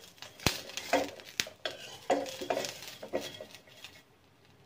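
A metal ladle stirring and scraping coconut slices, garlic and ginger being roasted in oil in a kadhai, knocking against the pan's side in a string of sharp clinks and short ringing strikes.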